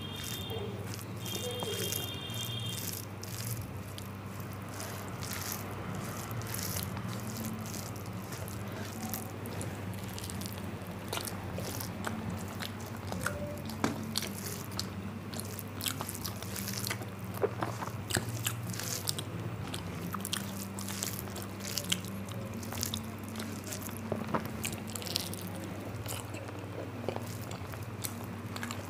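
A person chewing mouthfuls of rice with taro-stolon and fish-roe curry, with scattered sharp mouth clicks, over a steady low hum.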